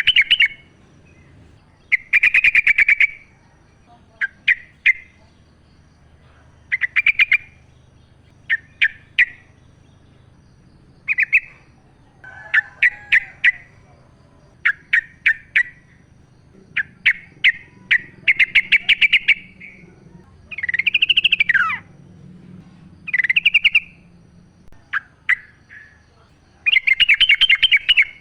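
Yellow-vented bulbul singing: short, rapid chattering phrases, one every second or two, with one phrase near the end sweeping up and falling back down.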